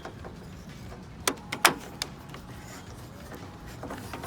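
Three sharp clicks about a second and a half in, the last the loudest, then a few fainter clicks near the end: a car door lock cylinder being worked into its seat in the door.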